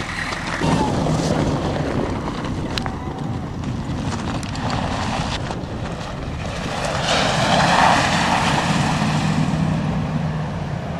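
Humvee engine running under load as it drives off-road, a steady drone that gets louder about seven seconds in.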